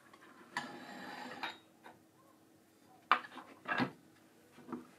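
Lava lamp's plastic base and cap being worked off its glass bottle: about a second of rough scraping and rubbing, then a sharp click, a heavier knock and a small knock as the parts come free and are put down on a wooden board.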